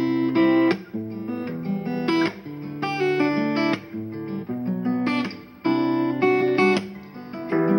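Acoustic guitar strumming a chord progression, the chords ringing with a few short breaks between phrases.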